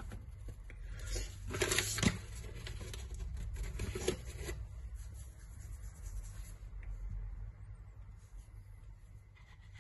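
Paper flour bag rustling and crinkling in short bursts as flour is shaken from it into a steel bowl, with a sharp tap about two seconds in; the rustling comes again around four seconds in, as the bag is set down.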